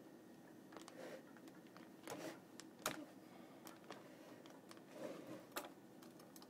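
Faint scattered clicks and brief rustles from fingers handling a motherboard's LGA 775 CPU socket and its metal retention lever, a few separate small ticks over a low hum.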